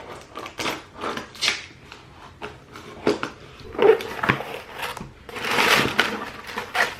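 A cardboard shipping box being cut open and unpacked: short knocks and scrapes, then a longer rustle or tear about five seconds in.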